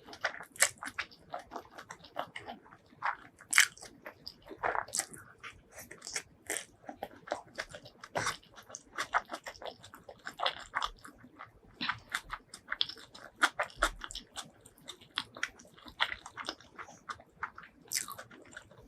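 Close-miked eating: a person biting and chewing crunchy food, with many quick, irregular crunches.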